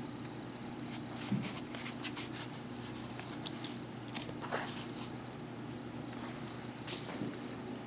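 Pages of a small paper instruction booklet being flipped by hand: a run of quick, papery flicks and rustles, the sharpest just before the middle and again near the end.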